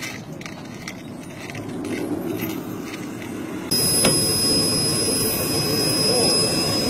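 Jet engine of a radio-controlled scale F-16 model running, at first as a lower rushing noise, then about halfway through suddenly louder with a steady high-pitched whine.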